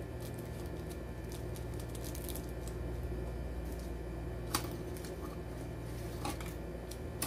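Faint squishing and light clicks of sauce sachets being squeezed and handled over instant noodles, with two sharper clicks in the second half, over a steady low hum.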